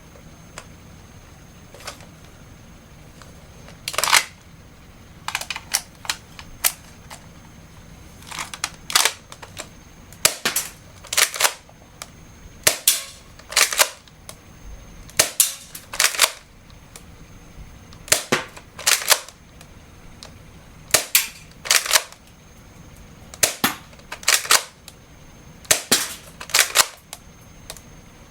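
Sharp mechanical clacks and snaps from a Tokyo Marui airsoft grenade launcher being worked by hand, coming singly, in pairs or in short clusters every second or two.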